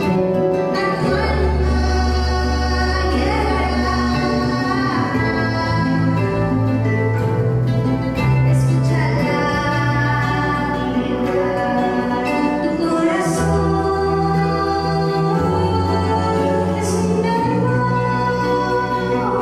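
Live acoustic band music: a woman singing over strummed small guitars, with low held notes that step from one pitch to the next and a didgeridoo being played.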